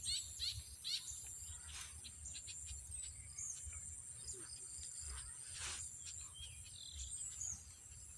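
Steady high-pitched insect buzz with birds chirping: a quick run of repeated chirps in the first second, then scattered single calls, over a low rumble.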